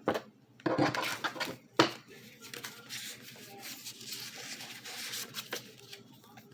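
Tarot cards being shuffled and handled: a sharp snap about two seconds in, then several seconds of soft, rapid riffling.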